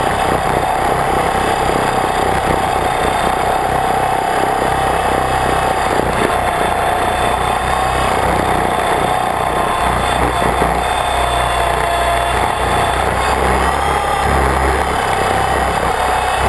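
Motors and propellers of an RC multirotor in flight, heard loud and close from a camera mounted on the craft. A steady buzzing whine drifts a little down and then back up in pitch as the throttle changes.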